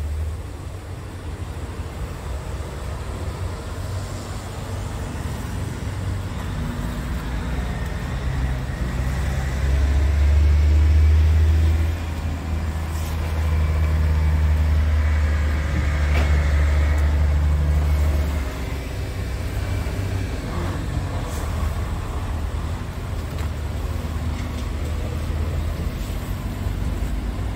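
Scania R tractor unit's diesel engine idling steadily, a low rumble that grows louder for several seconds in the middle.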